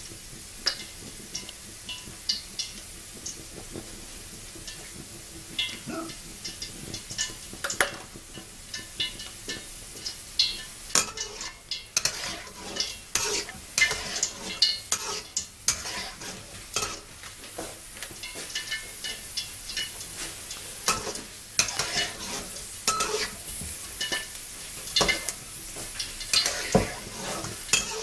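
Peanuts frying in oil in a wok over low heat, with a faint steady sizzle, while a metal spatula stirs them, scraping and clicking against the wok over and over, the stirring getting busier partway through.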